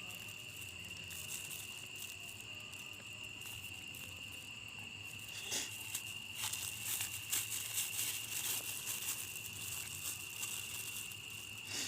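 Crickets chirring in one steady, unbroken high tone. From about halfway through come scattered clicks and rustles.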